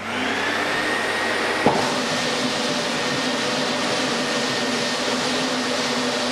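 Klindex Timba floor sanding machine and its dust-extraction vacuum starting up and then running steadily, with a whine that rises as it spins up. A single sharp knock comes just under two seconds in, and the machine keeps running while its planetary head sands the wooden floor.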